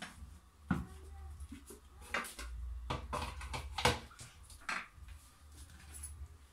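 Kitchenware being handled on a counter: about five sharp knocks and clacks of dishes and a plastic blender jar being picked up and set down, over a low hum.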